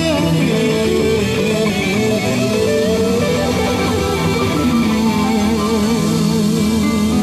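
Live rock band playing an instrumental passage: a lead electric guitar solo of held, bent notes with vibrato, over keyboards and drums.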